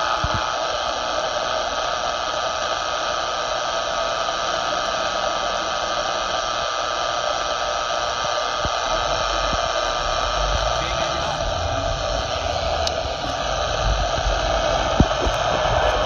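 Steady rush of static from a Luiton LT-298 CB radio's speaker on channel 19, its signal meter lit. Near the end a low rumble and a few knocks come in as the phone is moved.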